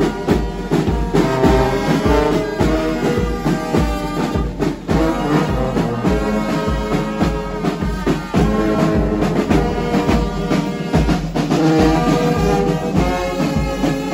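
Brass band playing a tune together, trumpets and tubas over a steady low beat.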